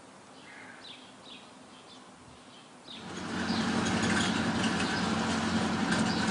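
Small birds chirping faintly. About three seconds in, a motor vehicle's engine and road noise come up much louder and hold steady, with a low hum under a wide rushing noise.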